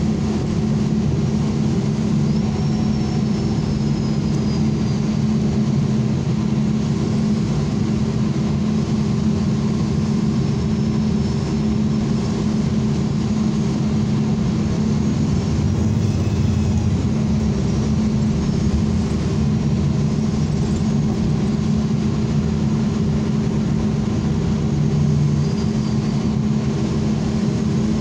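ENC transit bus heard from inside while under way: a steady engine drone with road noise and a few faint high squeals.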